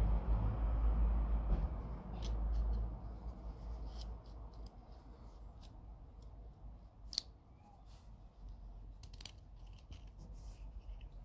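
Small metal clicks and scrapes from an IMCO Triplex Super 6700 lighter being handled, its insert slid out of the case and back in. There are a dozen or so separate sharp clicks, the sharpest about seven seconds in. A low rumble fades out over the first three seconds.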